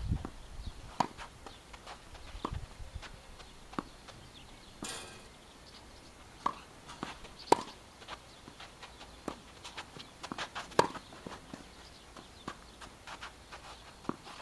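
A tennis rally: rackets striking the ball and the ball bouncing on the court, heard as a series of sharp pops a second or two apart. The loudest come about seven and a half and eleven seconds in.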